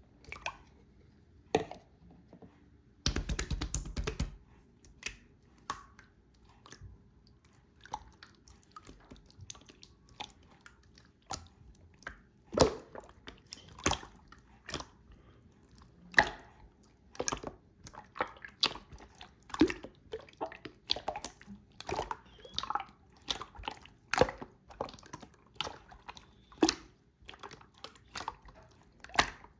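White slime being pressed, poked and pulled by hand, giving repeated sticky pops and wet clicks, with a dense crackling run about three seconds in.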